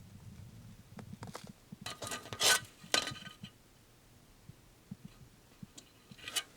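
Plastic model kit parts trees being handled: light clicks and clatter of hard plastic, loudest around two and a half seconds and three seconds in, then only faint ticks.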